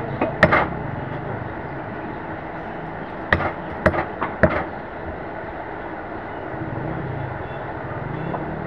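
Meat cleaver chopping beef on a wooden log chopping block: two sharp strikes at the start, then three more about half a second apart partway through. A low rumble swells and fades near the end.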